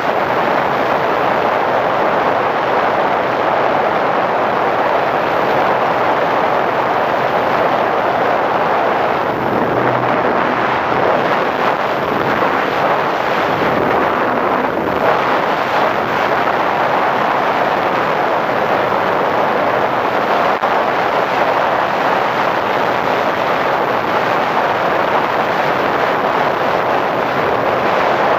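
Steady rush of wind and motor noise on an onboard camera's microphone, from a radio-controlled P-51 Mustang model in flight.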